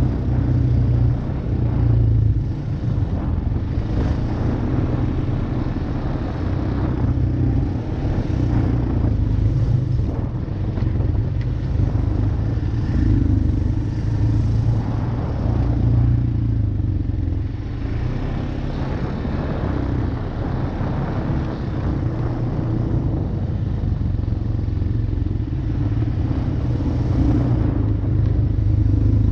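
ATV engine running steadily under way on a trail, its level rising and falling a little.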